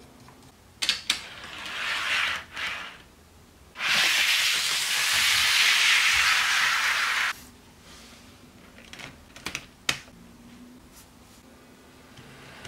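HO scale covered hopper car rolling freely along sectional model track: its metal wheels on the rails make a steady rushing hiss for about three seconds that cuts off abruptly. Before it come a few light clicks, and after it a couple of faint clicks.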